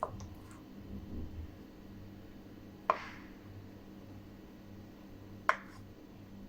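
Knife knocking on a cutting board while boiled egg is cut into small pieces: three sharp single knocks a few seconds apart, over a faint steady low hum.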